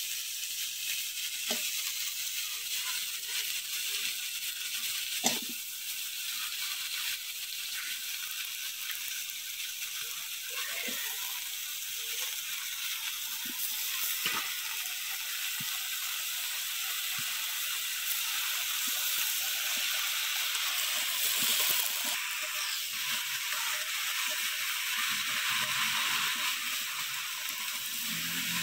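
Malabar spinach and vegetables frying in hilsa fish oil in a pan: a steady sizzle, with scattered knocks in the pan, the sharpest about five seconds in.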